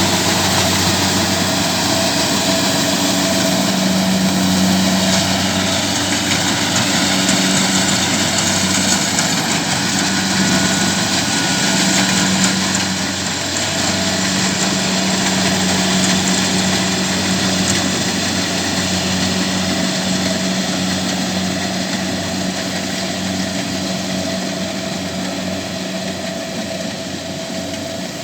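Kubota DC70Plus combine harvester's diesel engine running steadily under load, with the whir and rattle of its threshing machinery, growing gradually quieter over the last several seconds.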